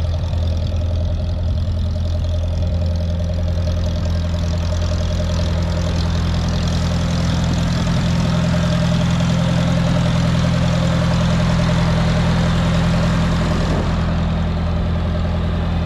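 Engine of a restored Allis-Chalmers Model D road grader idling steadily.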